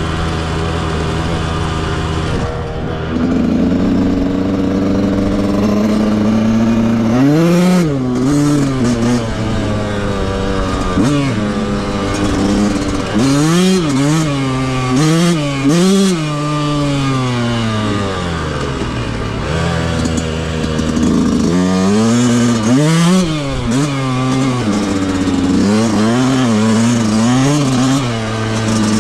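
Yamaha YZ125 two-stroke dirt bike engine with its stock exhaust, ridden off-road. Its pitch holds fairly steady for the first few seconds, then rises and falls over and over as the throttle is opened and shut.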